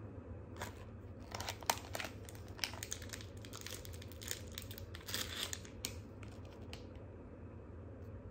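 Crinkling and tearing of a small snack packet's wrapper being opened by hand: a quick run of crackles, busiest from about a second in until near the end.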